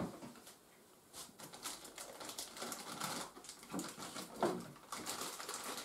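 Faint, irregular light clicks and knocks of someone moving things about, starting about a second in.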